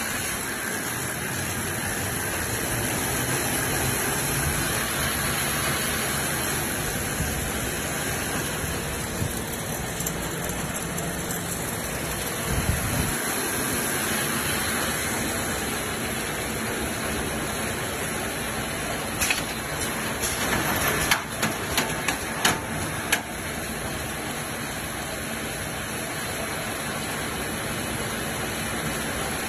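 YC900 wire mesh sleeve knitting machine running with a steady mechanical noise. A few sharp clicks and knocks come about two-thirds of the way through.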